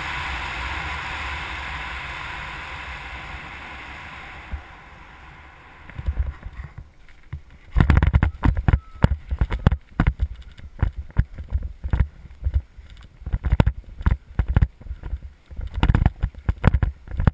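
Wind rushing over the microphone of a camera on a hang glider as it glides in to land, dying away over the first few seconds as it slows. From about six seconds on come irregular thumps and knocks as the glider touches down and moves about on the ground, the loudest around eight seconds in.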